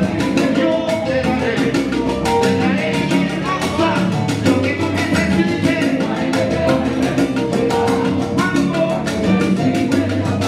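Live Cuban salsa band playing, with congas and timbales keeping a dense, quick beat under the band and a male lead singer.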